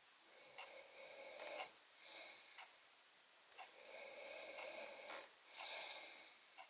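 Faint breathing through the nose close to the microphone, in soft hissy stretches, with a few small clicks from steel tweezers gripping and plucking beard hairs.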